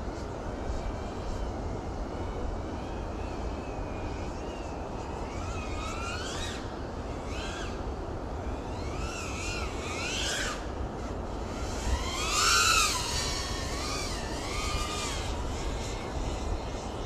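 Small FPV quadcopter's electric motors whining, the pitch rising and falling as the throttle is worked, over a steady low rumble. The loudest, highest surge comes about twelve seconds in.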